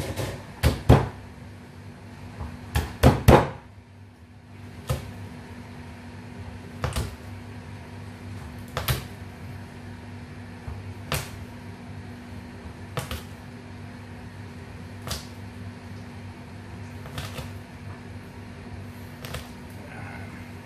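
Kitchen knife cutting garlic cloves, the blade knocking on the cutting board: a few quick knocks in the first few seconds, then single knocks about every two seconds. A steady low hum runs underneath.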